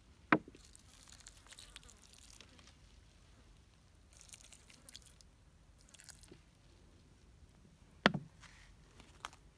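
Quiet handling noise: two short sharp knocks, one near the start and one about eight seconds in, with faint rustling and small clicks between them.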